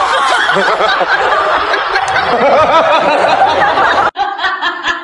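A laughter sound effect: several voices laughing at once, loud and steady, cutting off abruptly about four seconds in.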